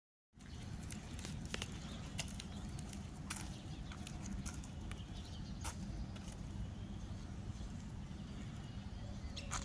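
Outdoor morning ambience: a steady low rumble with scattered sharp clicks, and a few faint bird chirps near the end.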